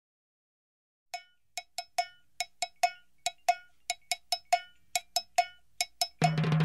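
Silence, then the intro of a music track: a run of short, pitched percussion hits, about three to four a second. A full band with bass and drums comes in near the end.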